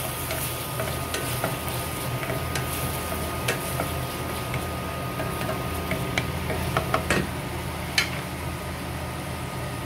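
Onion and tomatoes sautéing in a stainless steel pan, sizzling while a wooden spatula stirs them, with scattered clicks and scrapes of the spatula against the pan and a steady low hum underneath.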